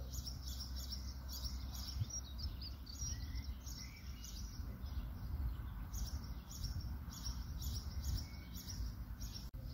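Small birds chirping and calling over and over, short high notes scattered throughout, over a low steady rumble.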